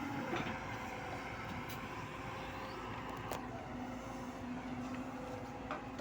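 Diesel engine of a JCB 140 excavator running steadily, with a few sharp clicks.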